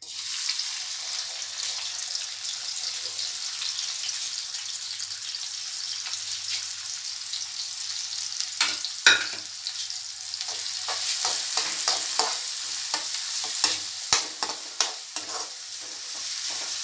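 Chopped onions sizzling in hot oil in a metal kadai, a steady hiss. From about halfway through, a spoon clinks and scrapes against the pan as the onions are stirred.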